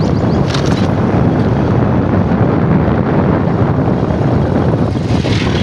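Steady low rumble of wind buffeting the microphone, with a brief brighter hiss near the end.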